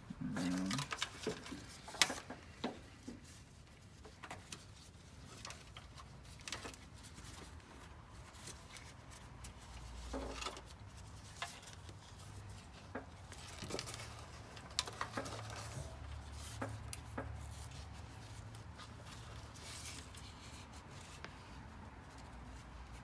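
Light handling sounds: scattered small clicks, taps and rubbing of objects being moved and set down, the sharpest click about two seconds in, over a faint low hum.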